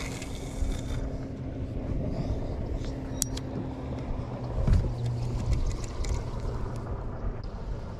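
A steady low motor hum from a boat on the water, with a noisy haze of wind and water under it. A single sharp click about three seconds in.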